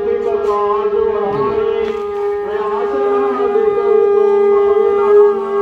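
A conch shell (shankh) blown in one long, steady held note, with a second, wavering tone beneath it.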